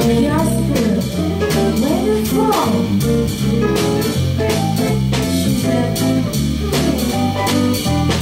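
Live band playing a bluesy jazz passage: electric guitar with bending notes over a bass line that steps note by note, a drum kit keeping a steady beat on cymbals and drums, and keyboard.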